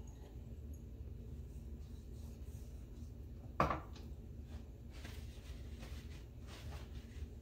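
Faint handling sounds of seasoning raw snapper on a cutting board, light rustling and rubbing, with one sharp clink of a small glass spice jar set down on the counter about halfway through. Paper towel crinkles faintly as fingers are wiped near the end, over a low steady room hum.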